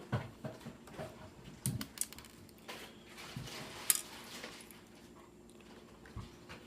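Scattered small clicks and taps of a screwdriver and fingers working the screws and plastic of a laptop's LCD display, with one sharp click about four seconds in.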